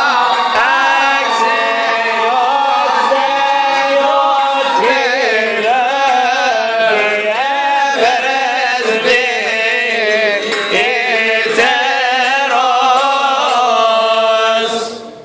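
Coptic Orthodox liturgical chant: a hymn sung in long, ornamented lines with wavering held notes. It dies away near the end.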